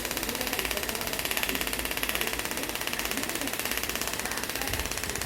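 Scalp micropigmentation tattoo machine buzzing steadily, its needle pulsing rapidly as it works pigment into the scalp.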